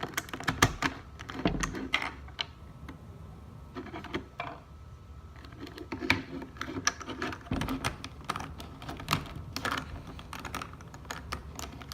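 Irregular light plastic clicks and rattles of Rubik's Cube pieces being handled and fitted back together.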